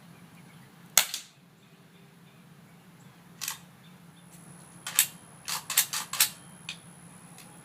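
A single shot from a Henry lever-action .22 rifle firing an Aguila Super Colibri, a primer-powered round with no powder: one short, sharp crack about a second in with a brief echo. Several smaller sharp mechanical clicks follow over the next few seconds.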